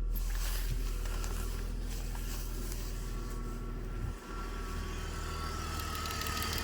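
BMW X5 E53's 3.0-litre M54 inline-six petrol engine idling steadily when warm, with a faint steady high tone over the running. It runs smoothly, without the loud whistle that comes and goes once it is warm.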